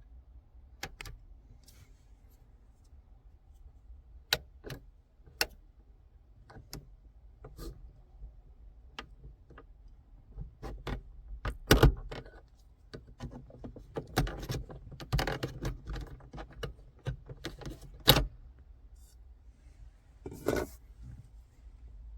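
Scattered clicks, taps and scraping of hand work on a car's plastic overhead light console as its lights and trim are pried off with a trim tool and screws are taken out. A few sharp snaps stand out about halfway through, again near the end, and once more just before the end.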